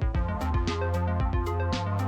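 Background electronic music with a steady drum-machine beat and sustained synth notes.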